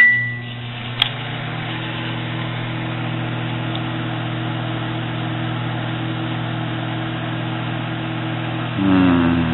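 Microwave oven running with a steady electrical hum and a single click about a second in. Near the end a brief wavering warble joins the hum.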